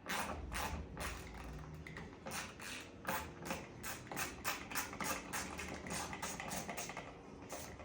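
Hand ratchet clicking through repeated back-and-forth strokes as a fastener is turned, about three to four strokes a second, quickening past halfway and stopping just before the end.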